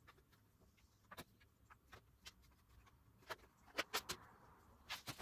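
Faint clicks and taps of stiff Kydex plastic sheets being handled and laid down on a wooden tabletop: a scatter of sharp ticks, loudest and most frequent around four seconds in.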